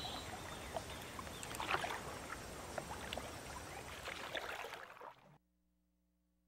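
A canoe paddle dipping into calm water: soft splashes and drips from the strokes over a quiet water background, fading out about five seconds in.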